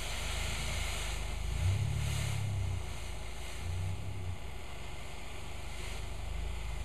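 Blacksmith's forge running: a steady low rumble with a hiss over it, swelling a little a couple of times.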